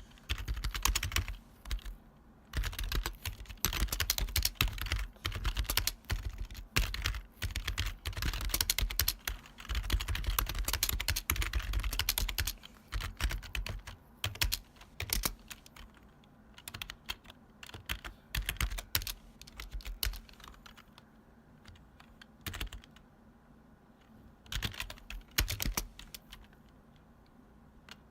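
Retro long-travel computer keyboard being typed on, with loud, clacky keystrokes. Fast, dense runs of typing give way about halfway through to scattered key presses with short pauses.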